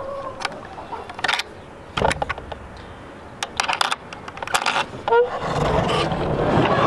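Metal hasp and clip on a wooden coop door rattling and clinking in several quick bursts as it is unlatched, then a short squeak a little after five seconds in as the door swings open, followed by a busy din of chickens clucking and squawking.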